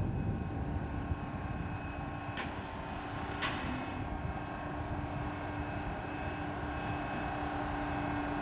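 Intermodal gantry crane's engine running steadily with a held whine as it carries a trailer slung beneath it. Two sharp metallic clicks come about a second apart, a few seconds in.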